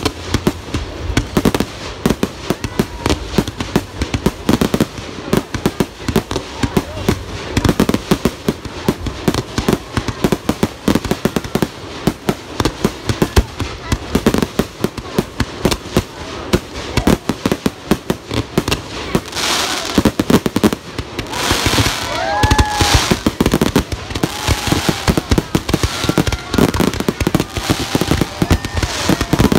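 Aerial fireworks bursting in a dense, continuous barrage of bangs and crackles.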